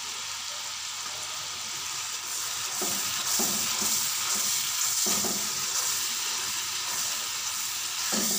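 Masala frying in hot oil in a steel pan with cumin seeds just added, sizzling steadily as a silicone spatula stirs it through; the sizzle grows a little louder about three seconds in as the stirring gets going.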